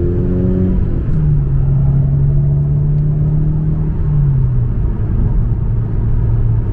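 Mitsubishi Lancer Evo VI's turbocharged 2.0-litre four-cylinder engine accelerating through the gears, heard from inside the cabin. The engine note climbs, drops at a gear change about a second in, climbs again and drops at another shift about four seconds in, then holds steady.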